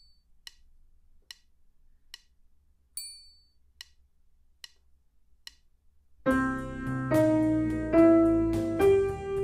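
A metronome ticking at about 72 beats a minute, with every fourth click accented and ringing, counts in a bar in 4/4. About six seconds in, an upright piano starts a slow beginner blues piece with both hands, in time with it.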